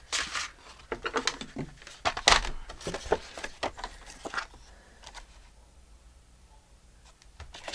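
Paper and craft tools handled on a tabletop: a run of rustles and sharp clicks, the loudest about two seconds in, then quiet for the last few seconds.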